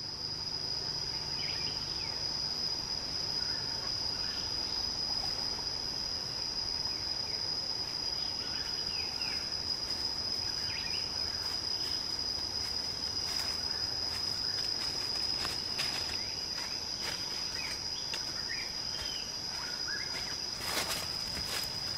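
Forest ambience: a steady, high-pitched insect drone with short bird chirps scattered through it, and a few short snaps in the second half.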